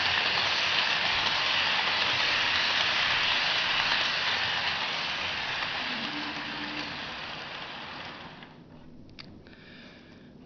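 Model Berkshire steam locomotive with a lead-weight motor, pulling a long freight train along model track: a steady rolling rattle of wheels and motor that fades away over the last few seconds, leaving a few faint clicks.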